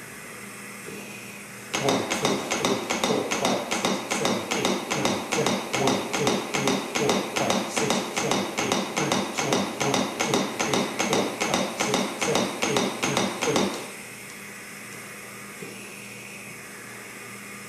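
CPR training manikin clicking under chest compressions: a rapid, even run of sharp clicks at a little over two a second for about twelve seconds, then stopping near the end for the pause for ventilations.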